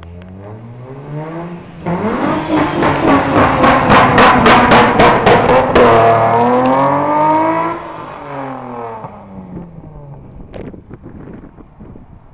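Mazda MX-3 engine revved hard through a burnout. The revs climb, hold high and very loud for about six seconds with a harsh noisy edge, then drop back to idle.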